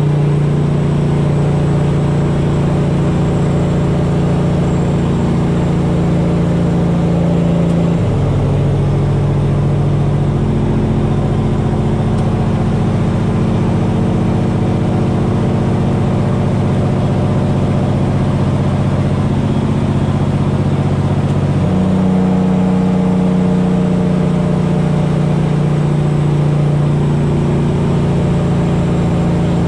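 Straight-piped diesel semi truck engine running under way, heard from inside the cab. About eight seconds in the engine note drops abruptly and deepens, then climbs slowly for about a dozen seconds before stepping back up in pitch about 22 seconds in.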